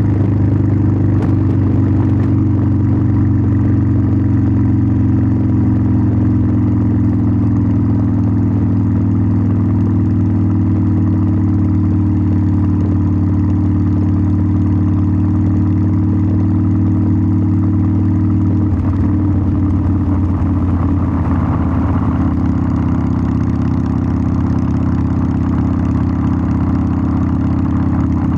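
Harley-Davidson Sportster 1200's air-cooled V-twin exhaust, running steadily at a held throttle while riding, its pitch sinking slowly. A little after halfway the note changes and turns rougher.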